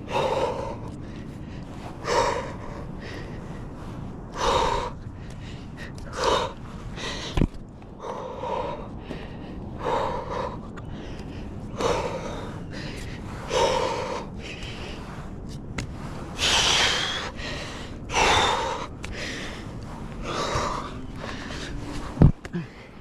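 A man breathing hard and heavily from exertion, a loud breath roughly every two seconds, with a couple of sharp knocks.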